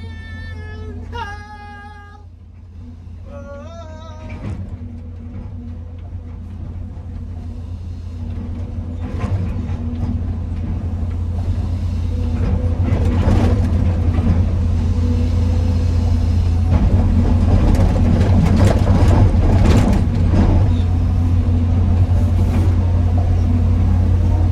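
Excavator's diesel engine running under working load: a steady low drone that grows louder over the first dozen seconds, with short bursts of clatter through the middle. A brief snatch of music or singing at the very start.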